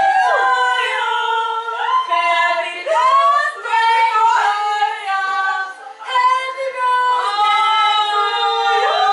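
Several female voices singing together in long held notes that slide from one pitch to the next.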